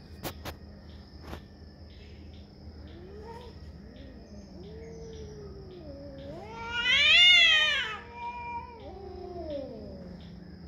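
Domestic cat caterwauling in a territorial standoff: a low, wavering yowl that swells into a loud high wail about seven seconds in, then slides back down and fades. A steady insect trill runs underneath.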